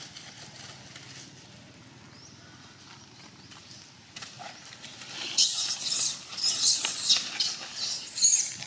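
Dry leaf litter crackling and rustling in loud bursts, starting about halfway through, as it is trodden and stirred on the forest floor.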